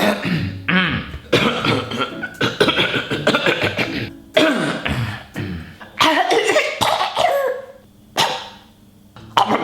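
A man coughing hard in a run of repeated fits, with a few voiced, groaning bits mixed in and a short pause near the end.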